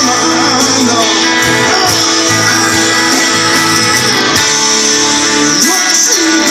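Live rock band playing an instrumental passage: electric guitars over bass and drums, loud and continuous.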